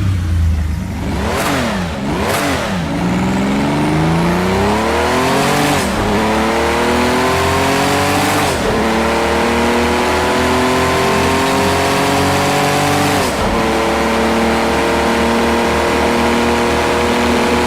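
Car engine revving twice, then accelerating hard through the gears. The pitch climbs steadily and drops at each of three shifts.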